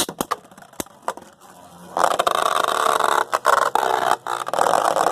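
A few sharp plastic clicks, then from about two seconds in Beyblade Burst spinning tops whirring and scraping steadily in a plastic stadium, with a couple of brief dips as they clash.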